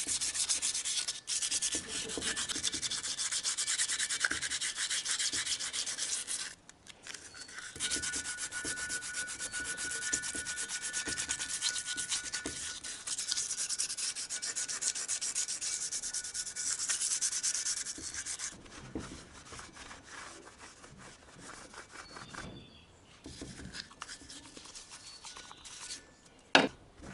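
Fast back-and-forth scrubbing by hand on the deck of a Renault Logan 1.4 cylinder head to clean off built-up grime, in two long runs with a brief pause between them. It then drops to quieter scattered scraping and handling, with a sharp click near the end.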